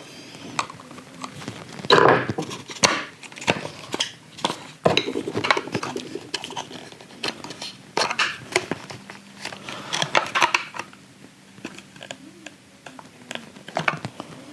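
Irregular plastic clicking, knocking and scraping as a car heater blower motor is wrestled loose from its housing, snagging on its small electrical contacts.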